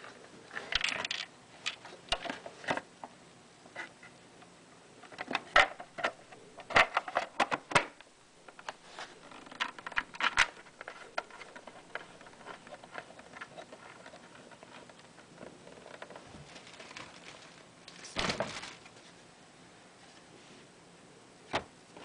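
Irregular clicks, taps and light clatter of small hard parts being handled, as when a hard drive and its media-player enclosure are fitted together. A dense run of sharp clicks comes around the middle, and a longer half-second scrape comes near the end.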